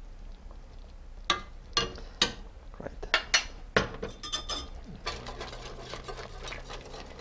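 Metal utensils clinking sharply against a stainless steel pot about six times, then, from about five seconds in, a wire whisk stirring and scraping around the pot of thick soup.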